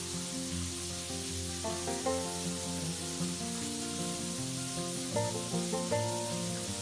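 Shower water spraying onto a pebble-tile floor, a steady hiss, under background music with a melody.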